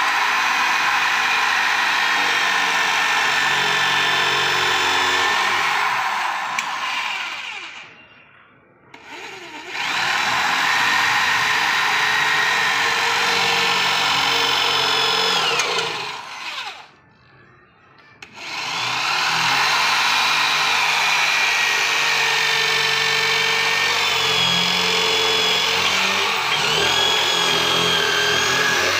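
Corded electric drill running, its bit cutting into a mahogany board, with the motor's whine shifting in pitch as the load changes. It winds down and starts up again twice, about 8 and 17 seconds in.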